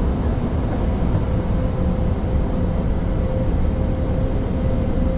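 Steady flight-deck noise of an Airbus A320neo in flight: a deep, even rush of airflow and engine noise, with a faint steady tone joining about a second in.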